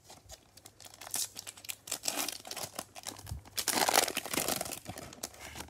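Foil trading-card pack wrapper crinkling in gloved hands and being torn open: a dense run of crackles, loudest around four seconds in.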